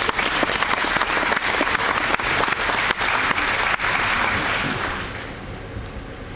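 Audience clapping, fading out about five seconds in.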